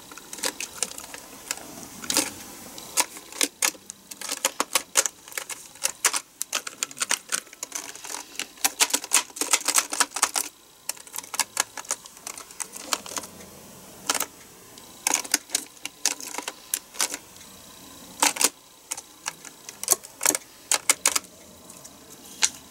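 Keys of a mechanical computer keyboard clicking as they are pressed down while gel cleaner is pushed into the gaps between the keycaps, in quick irregular clusters with short pauses between.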